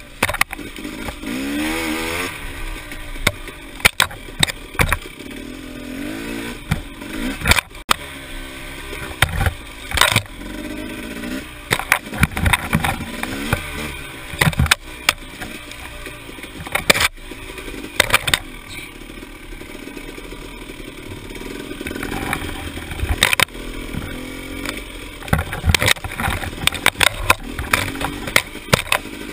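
Dirt bike engine revving up and down as it rides a rough, overgrown trail, with frequent sharp knocks and scrapes from bumps and brush striking the bike.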